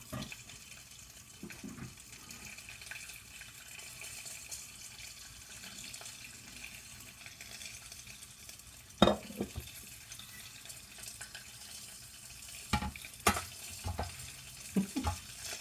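Butter and popcorn kernels sizzling in a lidded pan, with the first kernels starting to pop. There is a sharp pop about nine seconds in and a few more near the end.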